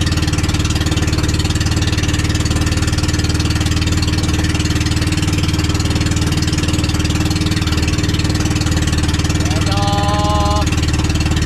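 Engine of a motorized outrigger boat running steadily under way, with a hiss of water and wind over it. Near the end a man's voice calls out briefly.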